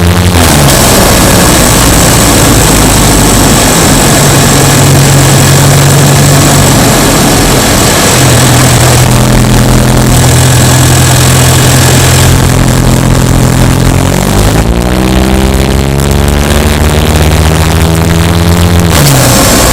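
Subaru Impreza Sport's flat-four boxer engine under way, with steady road noise. The revs drop at the start, hold steady, climb about fifteen seconds in, then drop again near the end.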